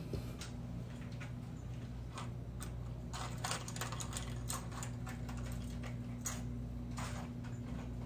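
Irregular light clicks and taps of small clamps being handled and fitted onto a dollhouse's wooden roof pieces, busiest in the middle, over a steady low hum.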